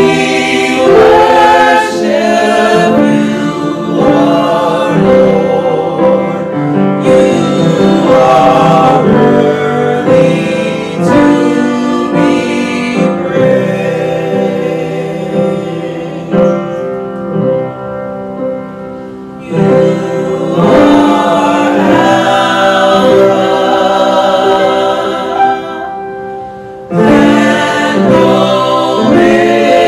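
Three women singing a gospel song together as a small vocal group. The singing softens for a few seconds about halfway through and briefly again near the end.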